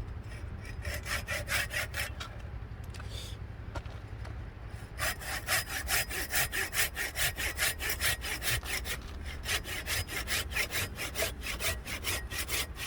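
Hand saw cutting through a firewood log by hand: light, uneven strokes at first, then from about five seconds in a quick steady rhythm of about two to three strokes a second.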